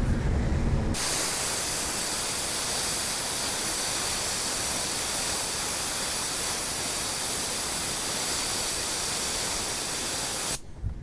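Compressed air blowing in a steady hiss onto a freshly soldered PL-259 reducer and coax shield joint to cool it quickly. The hiss starts suddenly about a second in, after a low rumble, and cuts off abruptly near the end.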